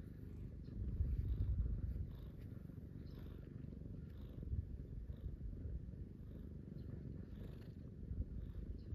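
Domestic cat purring close to the microphone: a steady low rumble, a little louder about a second in, the sound of a contented cat being stroked.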